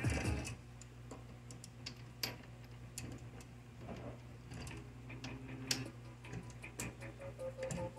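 Scattered metallic clicks and taps from a wood lathe's chuck being fitted and tightened on the spindle with a chuck key and tommy bars, over a low steady hum. Background music fades out about half a second in.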